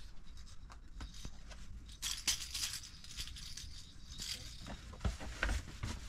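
Rustling and rattling of household things being handled on the floor, in irregular bursts with small clicks, and a couple of dull thumps about five seconds in.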